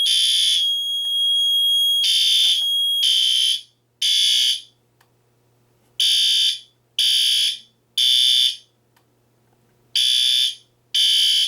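System Sensor L-series fire alarm horn strobes sounding in the temporal code-3 pattern: three half-second horn blasts a second apart, then a short pause, repeated. For the first few seconds a steady horn tone runs under the blasts. After that only the clean three-blast pattern remains.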